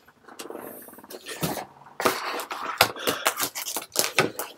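Comic books being handled: papery rustling and light clicks and knocks as one is set aside and the next is taken from a cardboard box, busier from about halfway through.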